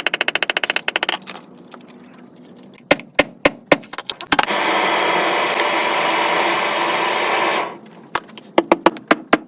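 Metalworking in a blacksmith's shop. A fast rattle of light taps gives way to single sharp knocks, then about three seconds of a steady rasping tool noise that cuts off abruptly, then more knocks.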